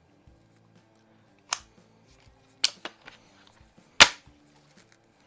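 Daisy 753S single-stroke pneumatic .177 target rifle being worked by hand: a few sharp clicks from the action, then a louder snap about four seconds in as the rifle is charged.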